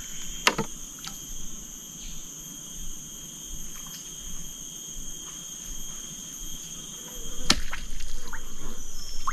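Steady high-pitched insect chorus, with a couple of sharp clicks, one about half a second in and one near the end.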